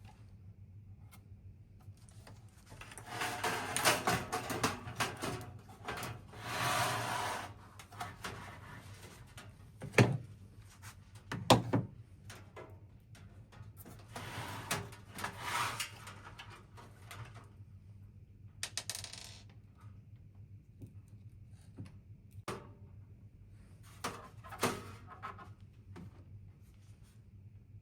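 Hands working on computer case parts: passages of rustling and scraping a second or two long, broken by sharp clicks and knocks of small hard pieces. The two loudest knocks come about ten and eleven and a half seconds in.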